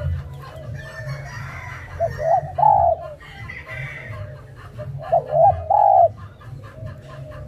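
Spotted dove cooing: two short phrases of coo notes, about two seconds in and again about five seconds in.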